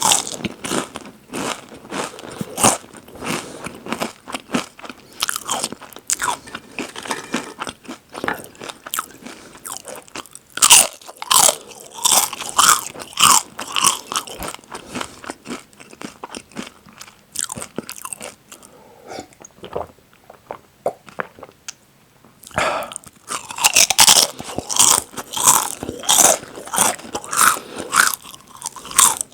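Close-miked biting and chewing of crunchy potato and tortilla chips: repeated sharp crunches with moist chewing between them. The chewing softens for a few seconds past the middle, then a fresh bite brings loud, rapid crunching back near the end.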